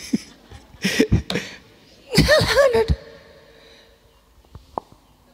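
A man laughing into a handheld microphone: a few short breathy bursts, then a louder voiced laugh about two seconds in that trails off into a held hum.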